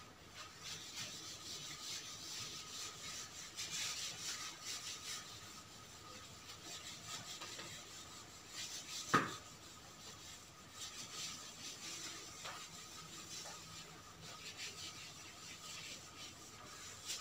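Scratchy, uneven rubbing on a whiteboard, with one sharp click about nine seconds in.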